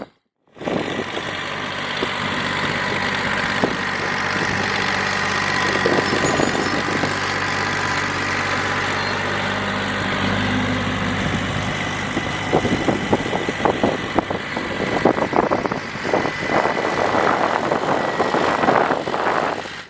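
Tractor engine running steadily while it drags and levels driveway gravel, with knocking and clattering of rocks from about two-thirds of the way in.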